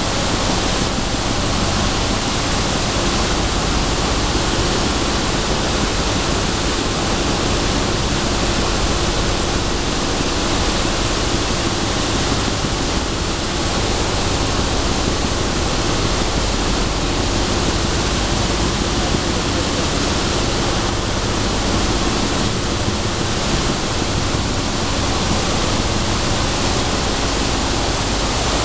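Sunflower seed dehulling line running: a steady, loud rushing din from the dehullers, screens and separators, with a low machine hum underneath.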